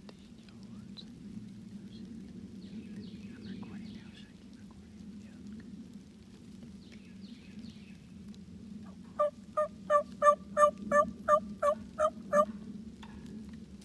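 A run of about eleven loud turkey yelps, evenly spaced at about three a second, starting about nine seconds in. Faint songbird chirps come earlier over a low steady woodland background.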